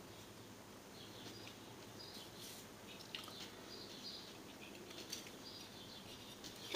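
Quiet room tone with faint, short, high chirps every second or so and a few soft clicks.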